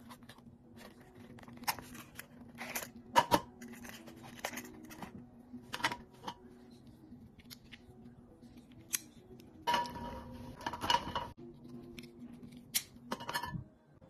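Hands handling a folding multi-tool and its nylon pouch: scattered clicks and snaps of the tool's parts with some rustling, and a longer scraping noise of about a second and a half near the middle.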